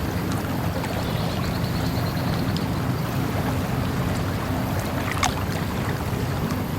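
Steady rushing of flowing water, with a faint quick ticking of insects high above it and one short sharp sound about five seconds in.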